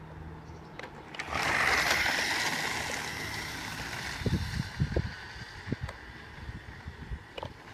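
Radio-controlled toy car's motor whining as it sets off over asphalt, starting suddenly a little over a second in and fading as the car drives away. A few low thumps come about four to five seconds in.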